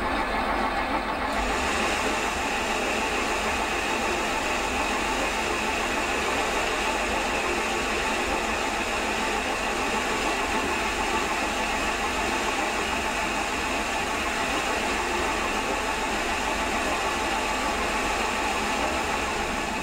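Metal lathe running steadily with its carriage on fine power feed, the tool taking a light turning cut along a cast iron bar.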